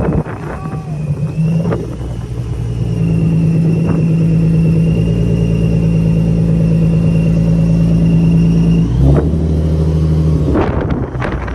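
A car engine running steadily at a constant speed, with a faint steady high whine above it. About nine seconds in, the engine note drops to a lower, deeper rumble.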